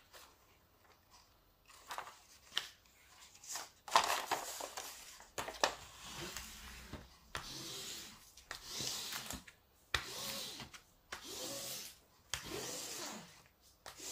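Hands rubbing and crinkling the paper release sheet on a sticky diamond-painting canvas, in a series of sweeping strokes about a second long each, after a few light taps at the start.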